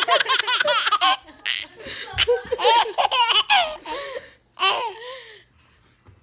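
Baby laughing in several bouts of quick, high-pitched giggles and belly laughs. The longest and loudest bout is in the first second, with shorter bursts after it, fading out near the end.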